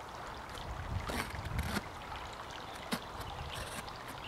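A knife blade cutting into a cardboard parcel: a few short slicing scrapes over a low rumble.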